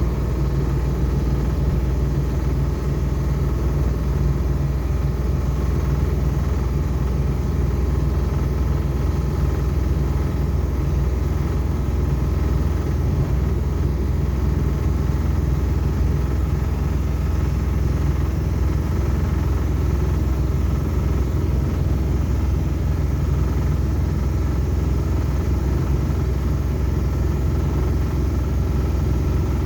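A motor vehicle's engine running steadily, a low, even rumble and hum with no change in speed.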